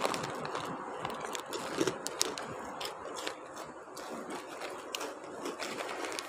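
Scattered light clicks and scrapes over a steady background hiss: a handheld phone being moved and carried while someone walks along a concrete corridor.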